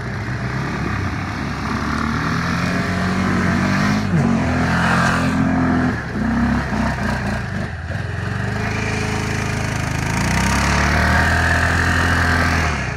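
ATV engines revving. The pitch climbs and then drops sharply about four seconds in, and after a rougher, quieter stretch the engine runs high again until it drops off near the end.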